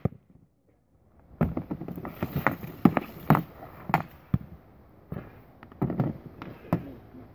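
Sharp clacks of a hockey stick and puck on a plastic shooting pad, a run of them roughly half a second apart. The loudest comes about three seconds in, after about a second of near silence at the start.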